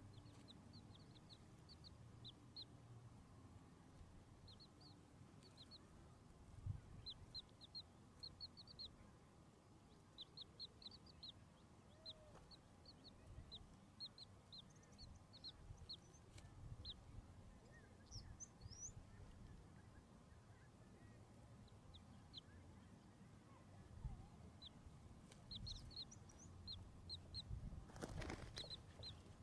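Chicks peeping: short, faint, high cheeps in quick runs of several at a time, over and over. A brief rustle comes near the end.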